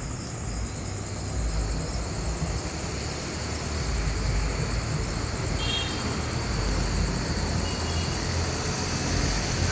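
Steady outdoor night noise: a broad low rumble like distant traffic, with insects, likely crickets, trilling high and steadily over it. A couple of short, high chirps come through around the middle.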